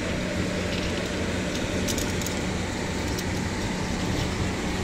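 Heavy diesel engine running steadily with a low hum, and a few light metallic clicks about two seconds in.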